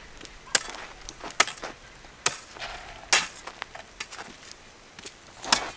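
Hoe chopping into dry, hard soil to open planting holes, in sharp strokes about one a second, with a longer pause before the last stroke.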